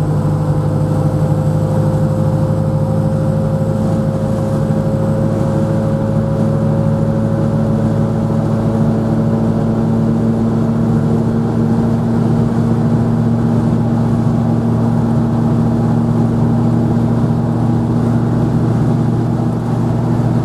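Opel Olympia Rekord's 40-horsepower four-cylinder engine pulling at full throttle uphill, its pitch climbing slowly as the car gains speed. The rebuilt replacement 1957 gearbox whines loudly along with it and holds in gear.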